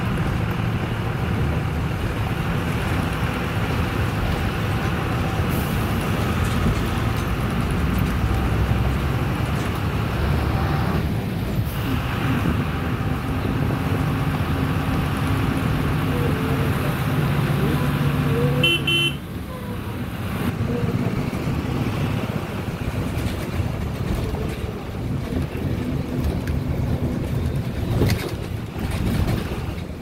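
Steady engine and road noise from moving vehicles, with a short horn beep about two-thirds of the way through, after which the noise drops a little.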